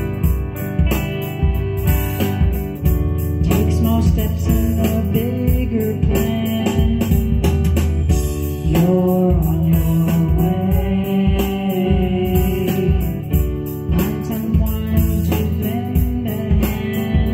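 A song playing: guitar over a steady beat, with a voice singing a melody through the middle.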